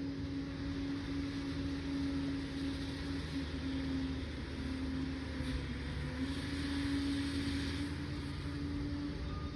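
Liebherr PR 746 crawler dozer's diesel engine running steadily with a steady whine over a low rumble. A hiss swells for a couple of seconds in the second half.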